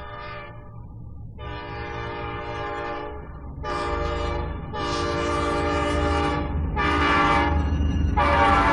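Diesel locomotive air horn sounding a series of blasts, some short and some long, over the low rumble of the train, which grows louder as it approaches.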